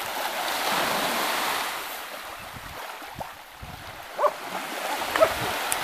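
Small waves washing on the shore with wind on the microphone, with a louder rush of splashing in the first two seconds as a dog bounds through the shallow surf. Two brief high squeaks come a little after four and five seconds in.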